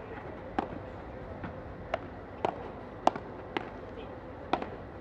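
Padel rally: the ball is struck back and forth with solid padel rackets and bounces off the court and glass walls, giving sharp pops roughly every half second over steady background noise.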